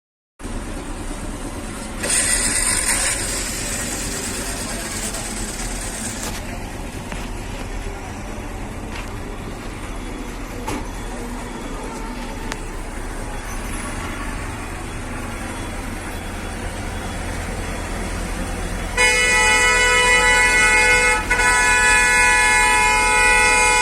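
Bus horn blowing a loud chord of several steady tones in two long blasts, separated by a brief gap, near the end. Before the horn there is a steady low vehicle rumble.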